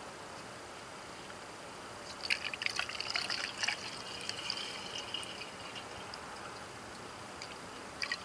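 A gasoline and corn oil fuel mix poured from a glass jar through a plastic funnel into a lawnmower's fuel tank: a splashing trickle that starts about two seconds in, is strongest for a couple of seconds, then thins out, with a brief second splash near the end.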